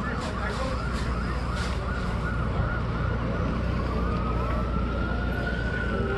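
Emergency vehicle siren yelping at about three or four sweeps a second, then changing to a slow rising and falling wail about four seconds in, over a steady low rumble.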